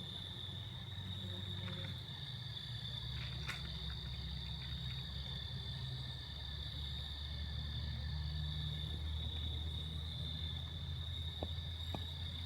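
Crickets trilling steadily in one continuous high chirr, over a steady low rumble.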